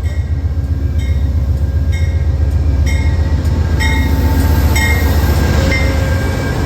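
Amtrak train: a steady, loud low rumble with a short ringing stroke repeating about once a second.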